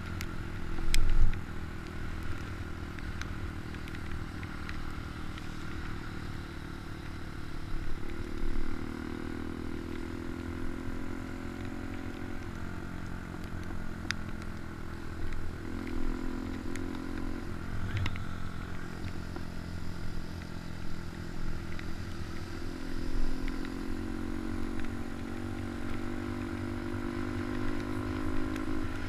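Motorcycle engine running steadily under way, its note shifting up and down a few times, with a loud knock about a second in.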